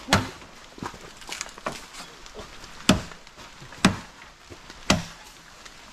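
A blade chopping into a green bamboo stem to cut it down. One hard chop comes right at the start, then a few lighter knocks, then three hard chops about a second apart, each with a short hollow ring.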